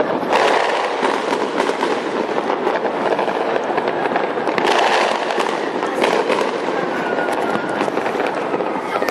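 Dense, continuous fireworks: many overlapping bangs and crackles with no pause, with heavier flurries about half a second in and again near the middle.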